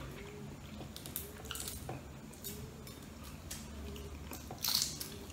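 Balut eggshell being cracked and picked off by fingers: scattered small crackles and clicks, the sharpest one near the end, over a low steady hum.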